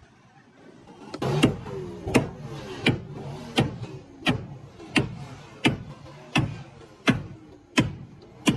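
Steady, evenly timed strikes: about eleven sharp knocks, roughly three every two seconds, beginning about a second in.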